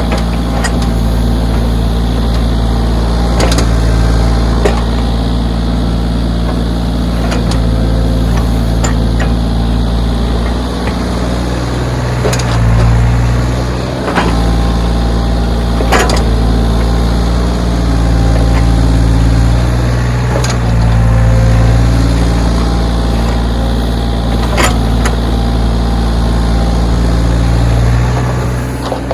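Backhoe's diesel engine running steadily under varying load, its level swelling and easing every few seconds, with occasional sharp knocks.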